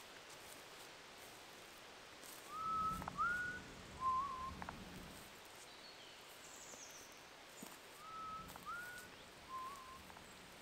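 Human whistling: a three-note phrase of two short rising notes, then a lower level note, heard twice about five seconds apart.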